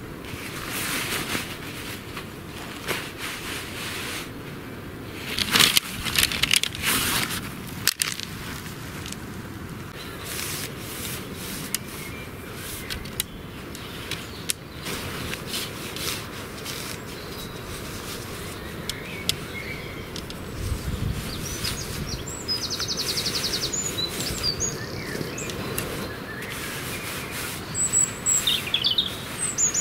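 Tent fabric rustling and tent poles knocking as a dome tent is spread out and its poles are fitted, with a few loud rustles about five to seven seconds in and a sharp click a little later. Small birds chirp and trill in the last third.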